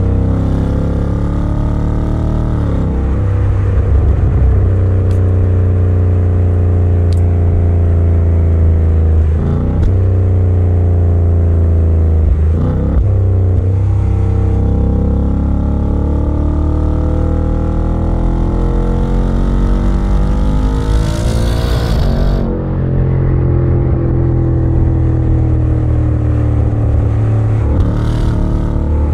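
2020 Ford Mustang's 5.0L V8 heard from inside the cabin while driving. The engine note repeatedly rises and drops with the revs, climbing steeply about three-quarters of the way through before briefly falling away.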